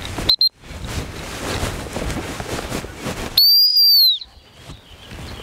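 Dog training whistle blown as a command to a working bird dog: a short toot about a third of a second in, then a loud single blast of just under a second about three and a half seconds in, its pitch arching slightly and dropping away as it ends.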